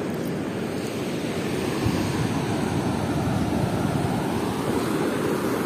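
Sea surf washing in over a flat sandy beach: a steady rush of foaming wave wash over the sand.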